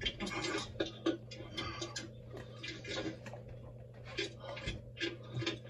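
Faint, indistinct voices over a steady low hum.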